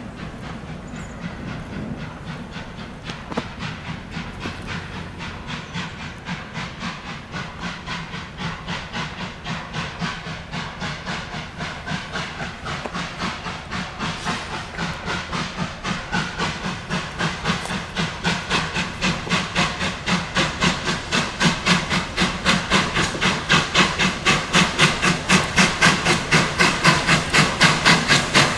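Victorian Railways J class 2-8-0 steam locomotive J549, an oil burner, working a passenger train: a steady rhythm of exhaust chuffs, about three a second near the end, growing louder as it approaches.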